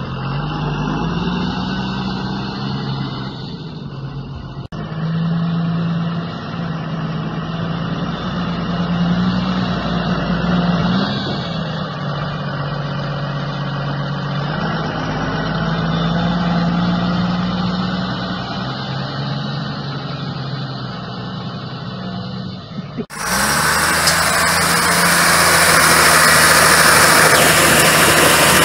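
Tata Cummins diesel engine of a Tata 715 TC 4x4 army truck running under load off-road, its pitch rising and falling as the revs change. About 23 seconds in, the sound cuts abruptly to a louder, closer recording of the engine running.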